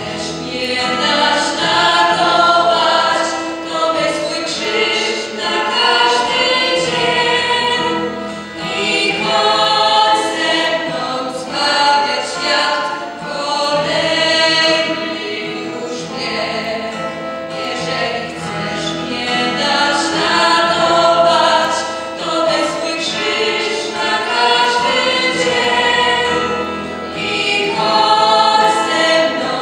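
A small group of young voices singing a song together into handheld microphones, in long held notes.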